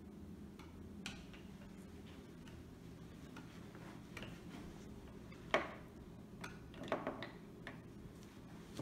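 A few light clicks and knocks of calligraphy tools handled on a table: the brush set down on the plastic ink tray and the paperweight shifted on the paper, the sharpest knock about halfway through and a small run of clicks just after, over a faint steady hum.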